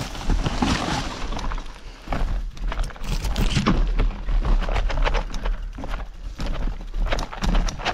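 Mountain bike clattering over a rough trail: irregular knocks and rattles from the bike over a steady low rumble.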